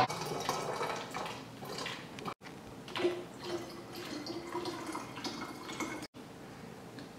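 Water poured from a glass measuring jug into an empty plastic bottle, splashing and gurgling as the bottle fills, with a steady low note for a couple of seconds in the middle. A sharp knock at the very start is the loudest sound, and the pouring cuts out abruptly twice.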